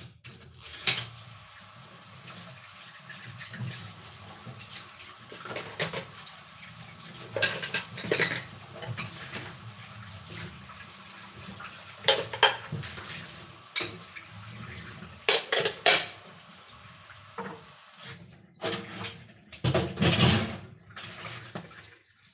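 Small hard household items clinking and clattering as they are handled and set down, in irregular scattered clinks over a steady faint hiss, with a louder clattering stretch near the end.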